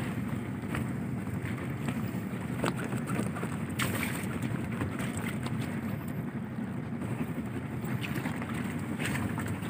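Steady low rumble aboard a motor fishing boat, with a few short knocks as a large yellowfin tuna is hauled against the rim of a plastic fish hold.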